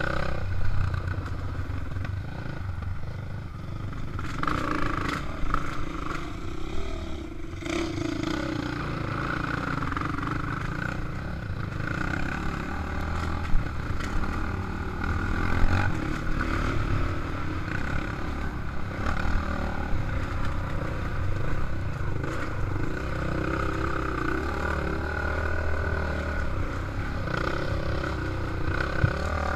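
A KTM dirt bike's engine running as it rides a rough dirt trail, its note rising and falling with the throttle, with the bike clattering over the ground. There are two sharp knocks in the middle.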